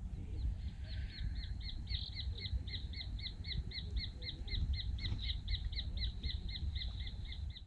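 A bird calling a long, even series of short, sharp notes, about four or five a second, over a low rumble of wind or background noise.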